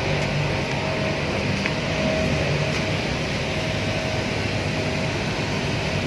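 Large cleanroom air handling units running: a steady rush of fan air with a constant low hum and a faint steady tone.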